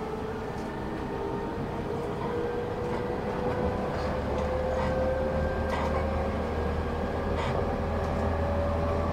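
Inside a JR 209 series 2200-subseries electric train car running between stations: steady wheel-and-rail running noise with a thin whine that rises slowly in pitch. A deeper rumble joins about four seconds in.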